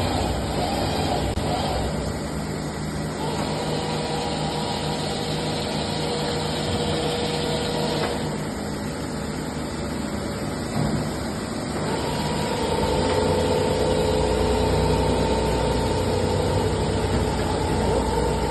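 Eumach FBE CNC milling machine running: a steady mechanical hum with a motor whine that drops out about eight seconds in and returns a few seconds later, a little louder.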